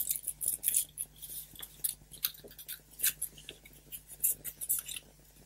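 Thin folded paper rustling and crackling under the fingers, in many short, irregular crackles.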